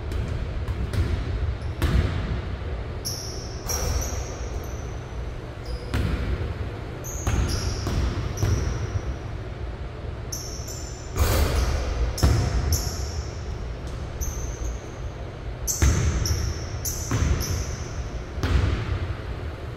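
Basketball bouncing repeatedly on a hardwood gym floor as a player dribbles, shoots and rebounds, the impacts echoing in a large hall. Short high sneaker squeaks come in between the bounces.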